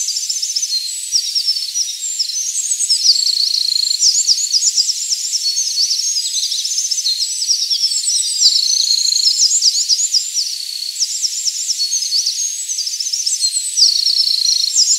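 Eurasian wren singing: a long, fast, high-pitched song of rapid trills and sharp notes, one phrase after another with only brief pauses.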